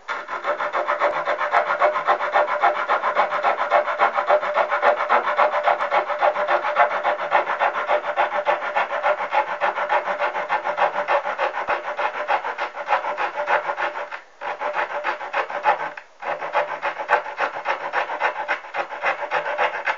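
Leatherman Sidekick multitool's small fine-toothed folding saw cutting with rapid, even back-and-forth strokes. It pauses briefly twice near the end.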